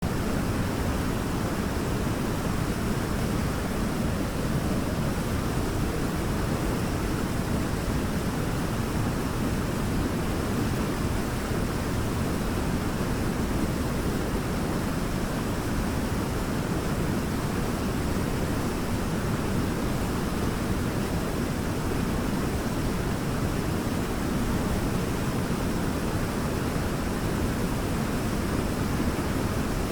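Waterfall: a steady, unbroken rush of falling water, deep and full with most of its weight in the low end.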